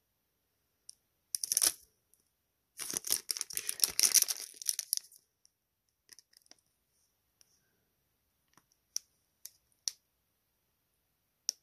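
Trading-card packaging and cards being handled: a short crinkling rustle, then a longer, denser tearing-like crinkle lasting about two seconds, followed by a few light clicks and taps.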